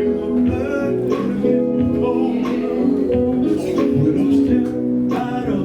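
Live gospel band music with singing, electric guitar and drums.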